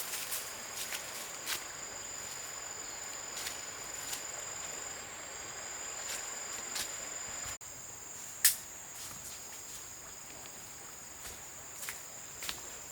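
Insects droning in a steady high-pitched tone, with scattered light clicks or taps and one sharper click a little past the middle.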